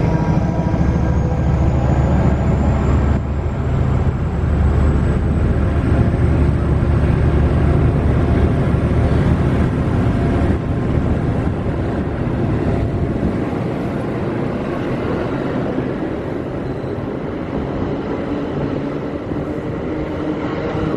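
Bombardier ALP-45DP dual-mode locomotive passing on diesel power: a steady, loud low engine drone, with a thin high whine rising in pitch over the first few seconds. The engine drone fades about ten seconds in as the bilevel passenger coaches roll by with a steady rumble of wheels on rail.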